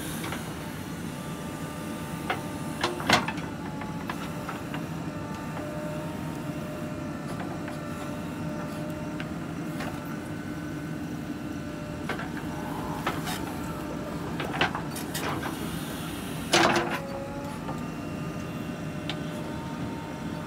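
JCB 3DX backhoe loader's diesel engine running steadily while digging, with a few sharp knocks and clanks of the bucket on the soil, the loudest about three seconds in and about sixteen and a half seconds in.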